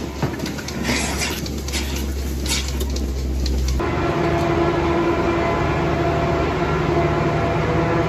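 Steady machinery hum of a milking parlour with scattered light clicks. About four seconds in it changes suddenly to a different, slightly louder steady mechanical drone with a held tone.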